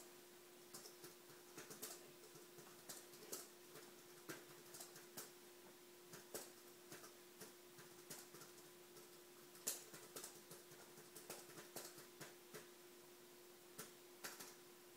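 Near silence: room tone with a steady faint hum and scattered soft clicks and ticks at irregular intervals, one sharper click nearly ten seconds in.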